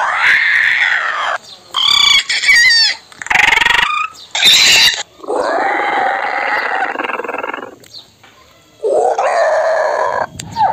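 Dubbed-in creature sound effects for an animated pterodactyl: a series of about six loud shrieks and squawks with short gaps, two of them long and drawn out and one warbling.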